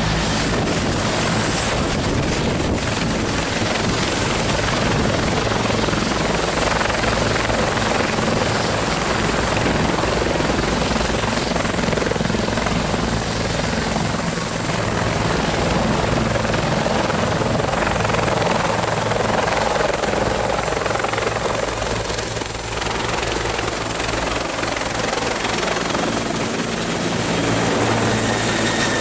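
Military turbine helicopter running close overhead: steady rotor and engine noise with a high turbine whine that slowly creeps up in pitch.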